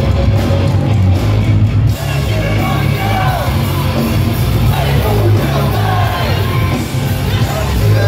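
Live hardcore punk band playing loud through a venue PA, with heavy low end, and shouted vocals coming in a couple of seconds in, picked up by a phone in the crowd.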